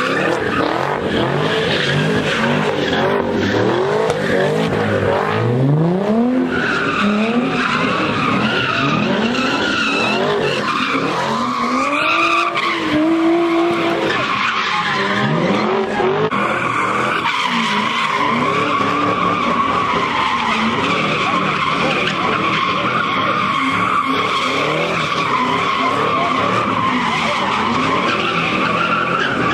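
Cars doing donuts: tyres squealing steadily while the engines rev up and down over and over.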